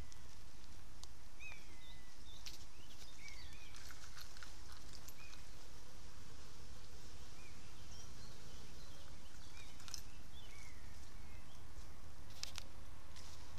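Outdoor ambience of scattered small-bird chirps, short calls that rise and fall in pitch, over a steady low rumble, with a few sharp clicks near the end.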